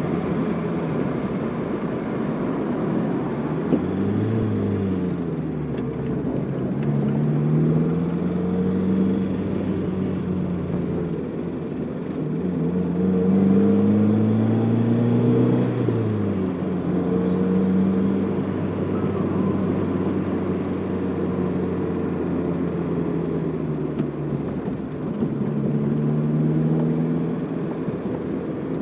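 Car engine and road noise heard from inside the cabin while driving. The engine's pitch rises as the car speeds up and drops back several times, over a steady low rumble.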